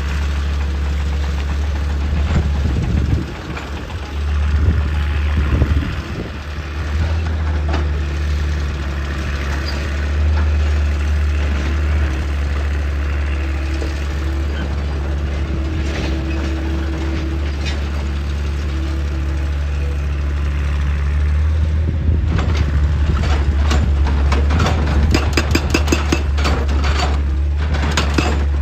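Hydraulic excavator's diesel engine running steadily under load, with a dip and surge a few seconds in. Near the end comes a quick run of clicks and knocks, typical of rock and metal clattering as the machine works.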